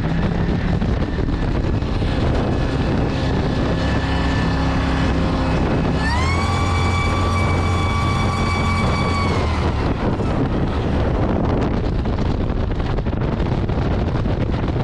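Supercharged LS V8 in a jet boat running under way. About six seconds in, the revs climb quickly to a higher, steady pitch for a few seconds, then drop back.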